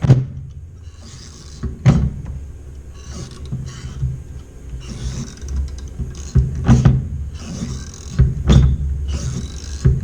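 Hand pop-rivet tool being worked through aluminium brackets, with sharp snaps every couple of seconds as the rivet mandrels break, over a steady low hum.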